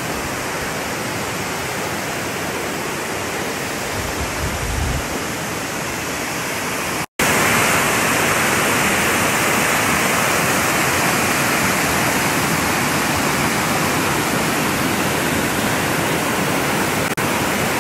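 Water rushing over rock in a steady, even roar. After a short break about seven seconds in, it comes back louder and fuller: a small whitewater cascade pouring down a sloping rock chute.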